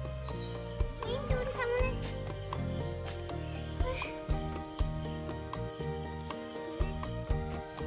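Crickets and other insects chirring in a steady high drone, under soft background music of low held notes with a light regular beat.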